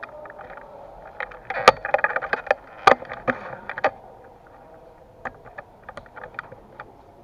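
A rapid, irregular series of sharp clicks and knocks, densest in the first half and thinning out to scattered clicks later.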